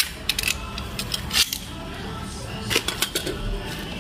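Plastic blister pack being handled and set down on a tile floor: a scatter of short, sharp plastic clicks and taps.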